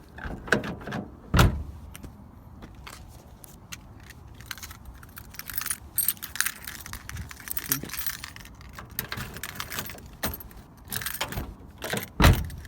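A key ring jangling and clicking as the keys are handled at the newly fitted door lock cylinder of a 1998 Honda Civic, with a heavy thump about a second in and another near the end.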